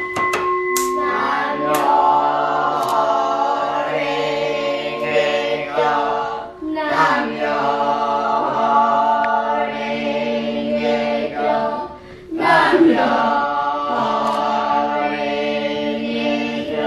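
Devotional chanting by several voices in slow, held melodic phrases, repeating three times with a short break between each.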